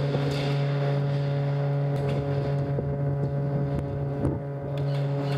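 Steady low mechanical hum with a few even overtones, with a couple of faint clicks.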